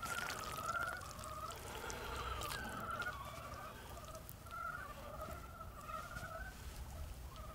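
Repeated short, wavering, whine-like calls from an animal in the background, with a few light clicks.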